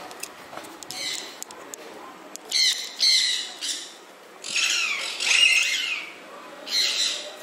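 Birds squawking in a series of short, high calls, with a longer, busier run of calls a little past the middle.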